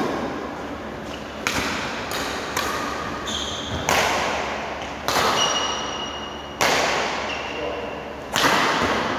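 Badminton rackets hitting a shuttlecock back and forth in a rally. There are sharp hits about every second or so, each with a short high string ping, echoing in a large hall.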